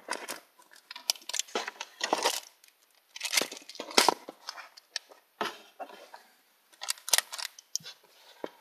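Close handling noise: irregular rustling and crinkling with light clicks and knocks as packaging and small objects are moved about right by the microphone.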